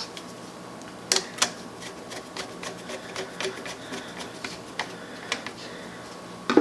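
Irregular sharp clicks and light taps of hand tools and electrical wire being worked while a wire is fastened under a terminal screw. The two loudest clicks come about a second in.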